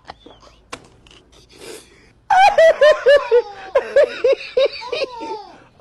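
A toddler laughing in a quick run of high-pitched giggles that starts about two seconds in and trails off near the end, after soft clicks and rustling.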